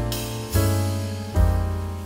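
Background music: sustained keyboard chords over a bass line, with a new chord struck about every second.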